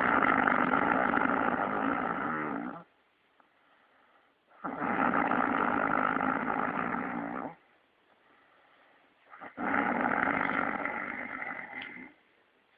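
A man snoring heavily: three long snores, each about three seconds, coming about every five seconds with quiet breaths between.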